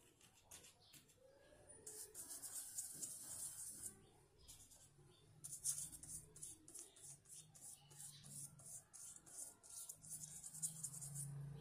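Paintbrush scrubbing thick green paint onto paper in quick short strokes: a faint, scratchy brushing at about four strokes a second, starting about two seconds in, with a short pause a little before the middle.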